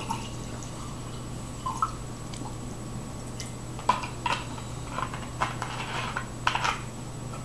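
Light clicks and crinkles of a plastic vinegar bottle being handled and its screw cap twisted, mostly in the second half, over a steady low hum.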